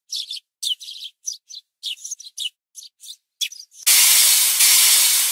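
Small birds chirping in quick, short, high calls. About four seconds in, a loud steam hiss cuts in, then fades away.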